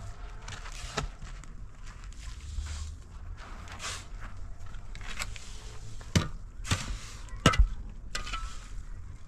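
Manual building work: scraping and rustling with a few sharp knocks, the loudest three coming between about six and eight seconds in, over a low rumble.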